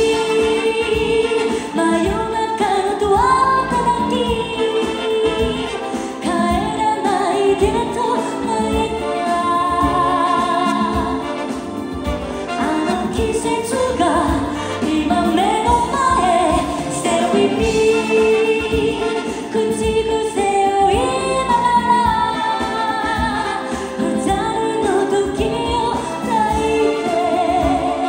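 A woman singing a ballad live into a handheld microphone over a live band's accompaniment, holding long notes with vibrato.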